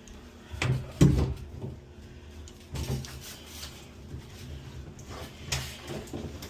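A handful of separate knocks and clunks from handling shower-head parts, the loudest about a second in.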